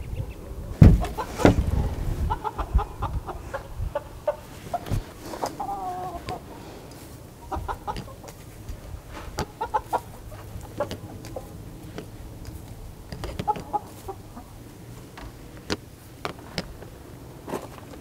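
Backyard hens clucking, with a few loud wooden knocks about a second in and scattered sharp clicks as the coop's nest-box hatch is handled and eggs are gathered.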